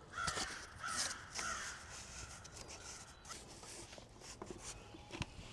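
A crow cawing three times in the first couple of seconds, followed by a few faint taps and knocks.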